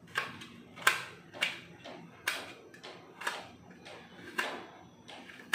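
Knife chopping fresh coconut into small bits on a stainless steel plate: the blade strikes the plate in sharp knocks about twice a second, unevenly spaced.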